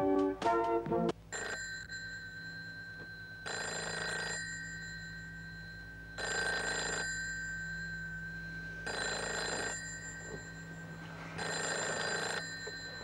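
Telephone bell ringing five times, each ring under a second long and about two and a half seconds apart. A brass music phrase cuts off about a second in, just before the first ring.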